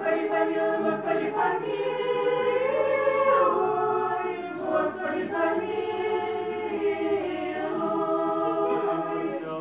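Orthodox church choir singing unaccompanied liturgical chant, several voices holding sustained chords that shift together.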